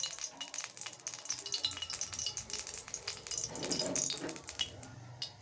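A small pool of cooking oil in an empty aluminium kadai crackling and sizzling with many small, scattered pops as it heats up, before anything is added to it.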